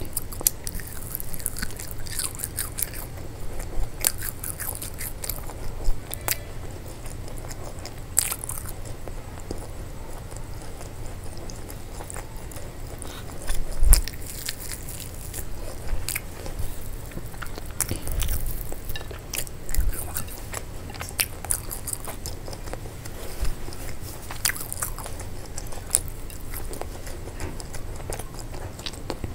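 A person chewing and biting food, with irregular clicks and smacks and a louder moment about halfway through.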